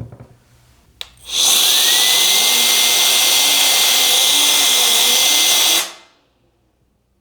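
WOLFBOX electric air duster switched on with a click, its motor whine rising in pitch and then holding steady under a loud rush of air for about four and a half seconds before it cuts off and winds down. It is blowing dust out of a PC case fan.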